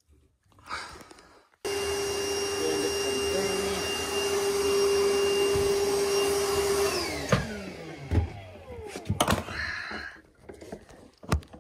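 Wet vac motor switched on suddenly, running steadily for about five seconds, then switched off and winding down with a falling whine. A few sharp knocks follow near the end.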